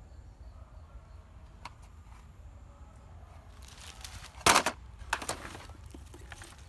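Plastic toy car dropped into a plastic bucket of toy vehicles: one sharp clatter about four and a half seconds in, then a few lighter knocks as it settles.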